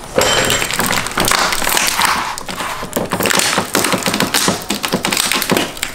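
Clear tape wrapped over a car's fender side-marker grille crinkling and crackling in a continuous run of small clicks as hands grip and tug it to pry the grille out of the fender.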